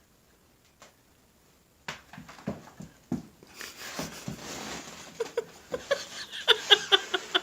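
Near silence at first, then scattered clicks and knocks from about two seconds in. From about five seconds in comes a quick run of short, high yips from an animal.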